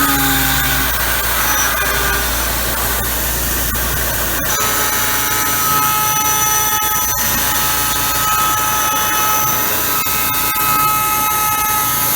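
Tormach PCNC 770 CNC mill machining aluminum: a steady spindle whine over cutting noise. About four and a half seconds in it changes to a steadier set of high whining tones.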